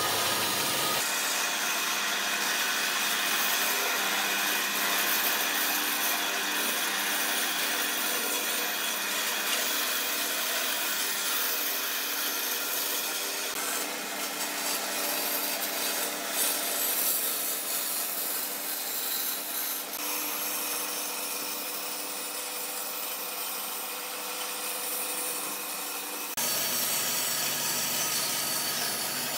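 Band saw running steadily as its blade cuts a curve through a thick glued-up softwood panel.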